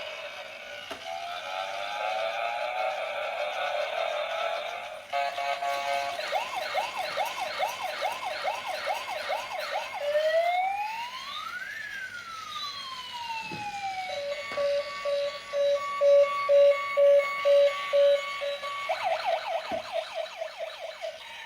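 Electronic toy siren from a small built-in speaker, cycling through patterns: repeated fast rising sweeps, quick yelping chirps about twice a second, one slow wail rising and falling, a run of loud beeps about twice a second, then fast sweeps again near the end.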